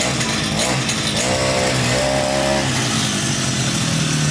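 Petrol brush cutter engine idling, its throttle blipped about three times in the first half so the pitch rises and falls, then settling back to a steady idle.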